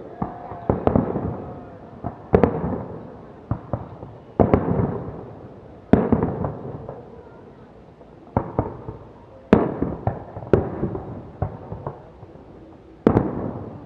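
Fireworks display: aerial shells bursting in sharp bangs every second or so at uneven intervals, each bang followed by a rolling echo that dies away.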